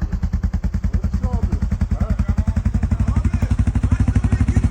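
CFMOTO CForce 625 ATV's single-cylinder engine running at low revs, its exhaust beating in rapid, even thumps that grow a little louder.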